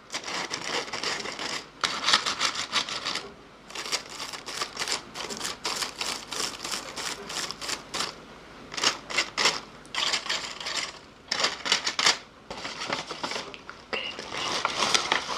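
ASMR mouth sounds made close to the microphone: rapid runs of clicks in bursts, broken by brief pauses.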